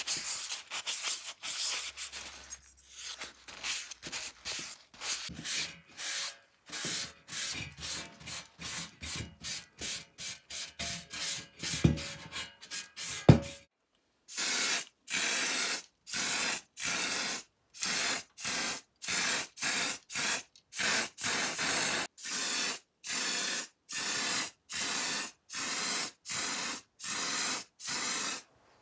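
A cloth rubbing quickly over small sheet-metal toy wheels in short repeated strokes, degreasing them, with two sharp knocks about halfway through. After a brief pause, an aerosol spray can of primer hisses in short even bursts, a little more than one a second.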